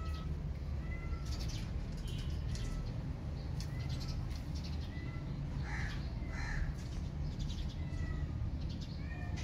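Crows cawing, with two harsh caws close together just past the middle, and small birds chirping briefly throughout, over a steady low rumble.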